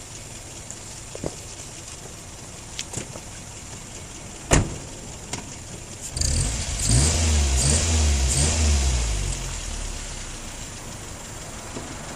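Toyota Yaris 1.0 turbo engine idling, with a few sharp clicks, the loudest about four and a half seconds in. About six seconds in it is revved in several quick rises and falls, then drops back to idle.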